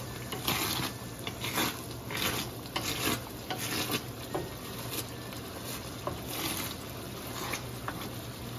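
Coconut cream sizzling and bubbling in a skillet as it cooks down into latik, drying out at this stage. A wooden spatula stirs and scrapes it across the pan in repeated strokes, strongest in the first half.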